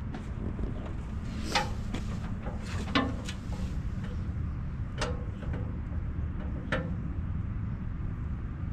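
Tractor engine running steadily while the heavy steel back blade is lowered on the three-point hitch, with four sharp metal clanks, each ringing briefly, as the blade and its hitch pins shift and settle.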